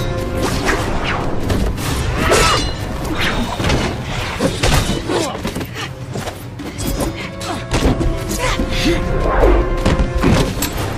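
Film fight-scene soundtrack: dramatic score under a run of punch and kick impacts and thuds, with short grunts from the fighters.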